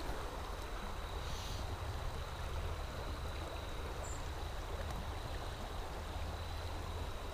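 Creek water flowing and rippling, a steady rush of moving water.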